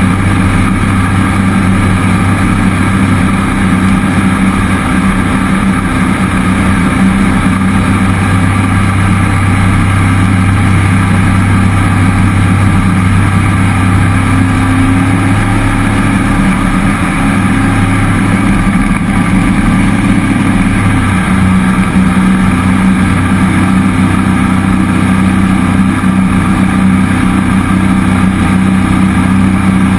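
Cammed 5.3-litre LS V8 of a jet boat running steadily under load at speed, its engine note shifting slightly partway through before settling again.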